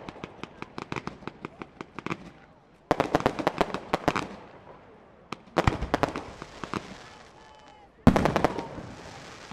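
Professional fireworks display: volleys of rapid bangs and crackles. One volley is already going and thins out into a string of single reports, and fresh volleys start about three, five and a half and eight seconds in, each dying away over a second or two.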